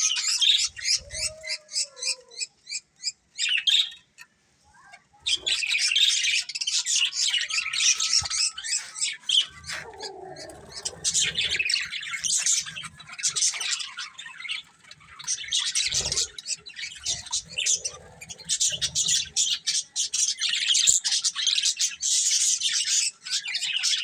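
A flock of budgerigars chirping and chattering in rapid, overlapping high-pitched calls, broken by a short lull about four seconds in.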